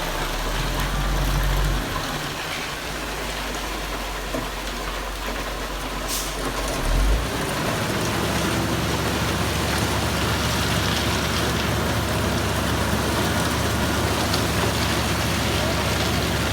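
Concrete-pouring machinery with its engine running steadily under a constant rain-like hiss of wet concrete pouring. About seven seconds in there is a brief louder bump, after which the engine hum settles lower and steadier.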